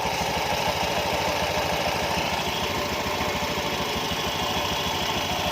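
Honda Scoopy scooter's single-cylinder engine idling steadily, an even fast pulsing. It runs without the rough, loose-sounding rattle that a worn pulley assembly caused, now that new pulley parts are fitted.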